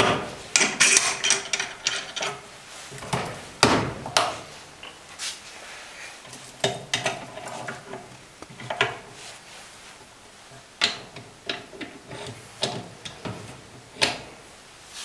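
Steel parts of a diesel injector clamping device clinking and knocking as its adapter plate is repositioned and an injector is fitted into it. A quick run of sharp metal clicks in the first few seconds, then scattered single knocks.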